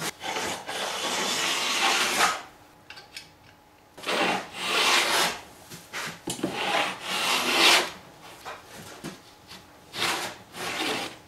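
Stanley No. 50 combination plane cutting a bead along the edge of a wooden cladding board: four rasping strokes of the blade shaving wood, with short pauses between them.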